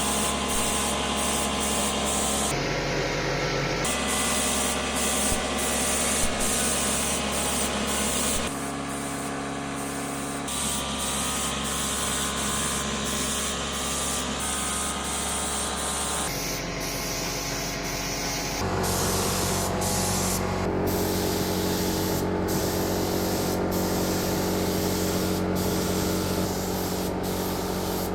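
Paint being sprayed onto scooter body parts: a continuous spray hiss with a steady low hum underneath, changing abruptly in tone several times.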